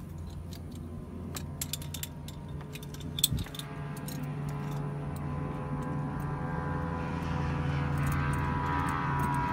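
McDonnell Douglas helicopter's turbine engine spooling up: a steady low hum with a rising whine that grows louder through the second half. A burst of small metallic clicks and jingles comes about one and a half to three and a half seconds in.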